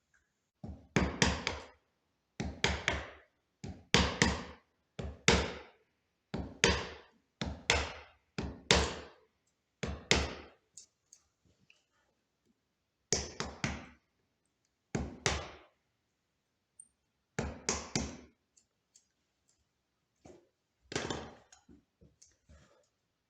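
Wood being struck by a hand tool in quick clusters of three or four knocks. The clusters come about every second and a half, then more sparsely after about ten seconds in.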